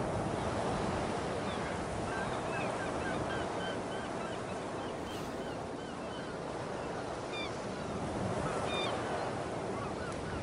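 Beach ambience: a steady wash of ocean surf with many short bird calls scattered through it.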